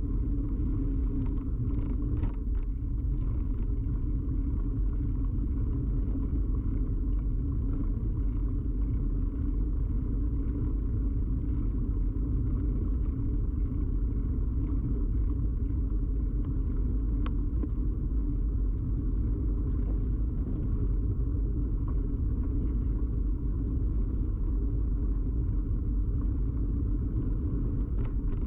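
Steady low rumble of a bicycle in motion, tyre and frame vibration carried straight into a camera mounted firmly on the bike, with a faint click about 17 seconds in.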